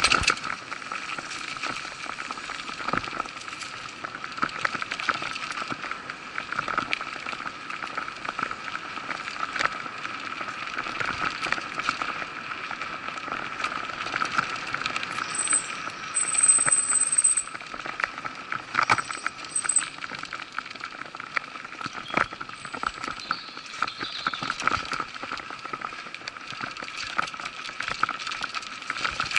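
Mountain bike ridden quickly along a dirt forest trail: continuous tyre and drivetrain noise with frequent rattles and knocks from the bike over bumps. A brief high squeal comes about halfway through.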